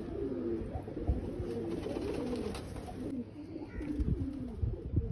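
Several domestic pigeons cooing together in short, overlapping, low rolling coos, with occasional low thumps on the microphone.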